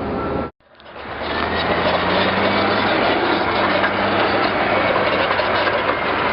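Heavy diesel engine running steadily with a low hum under a broad, even noise. The sound cuts out abruptly about half a second in and swells back within about a second.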